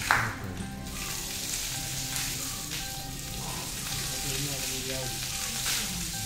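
Water splashing steadily as an elephant is bathed, with one louder splash right at the start.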